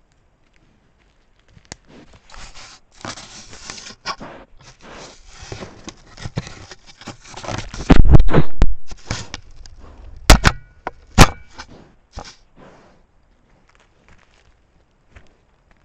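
Wild boar snuffling right at the trail camera's microphone, a quick run of breathy sniffs. Then comes a heavy knock, followed by two sharp knocks and faint scraping as its snout and bristly body bump and rub against the camera.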